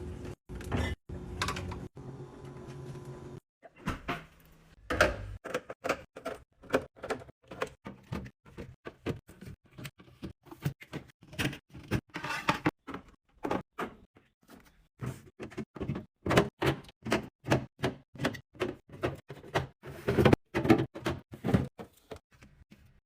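A steady hum for the first few seconds, then a long run of quick clicks, knocks and clatter as packaged snacks and drinks are handled and set into a fridge.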